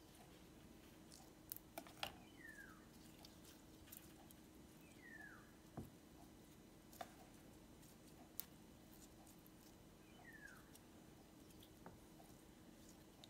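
Quiet, scattered clicks and sticky smacks of glitter slime being stretched in the hand and poked with a plastic tool, the loudest about 2 seconds in. A short high chirp falling in pitch sounds three times in the background.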